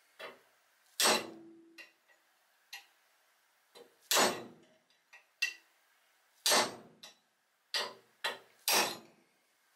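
Steel point of a hand tool scraping and tapping on a rusty axe head, about a dozen short, irregular strokes. The loud one about a second in leaves a brief metallic ring.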